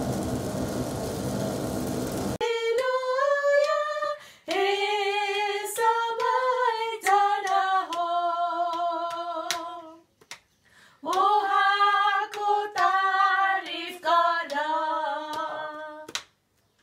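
Steady noise of coffee beans being stirred in a roaster's cooling tray, cut off about two seconds in; then women singing a song, with hand claps.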